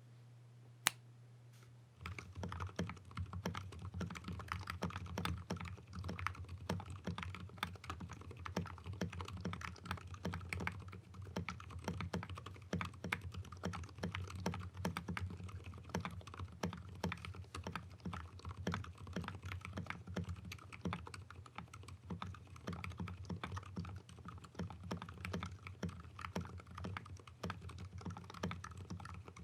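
Continuous typing on a 60% mechanical keyboard with Gateron Silent Black switches (dampened linears), an FR4 fiberglass plate, a wood case and thick PBT keycaps, giving a deep sound. A single sharp click comes about a second in, and the steady typing starts about two seconds in, over a low hum from the amplified recording.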